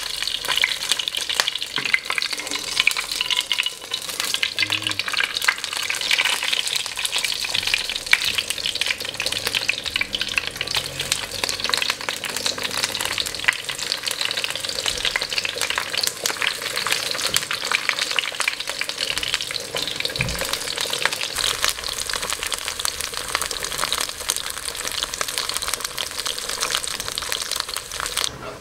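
Green bell pepper strips frying in hot oil in a non-stick pan: a steady, dense sizzle full of fine crackles.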